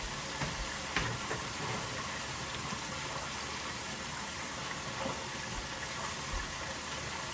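Steady sizzling and bubbling from a pan of smothered potatoes with water just added, with a few faint clicks.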